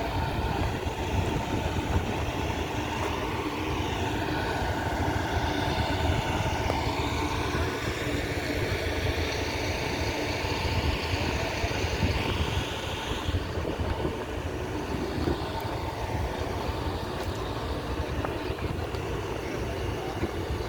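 Excavator diesel engine running steadily: a continuous, dense rumble with no break.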